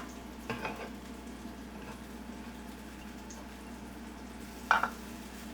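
Fish pieces frying in hot oil in a pan, a steady low sizzle. A brief knock comes about half a second in and a louder one near the end.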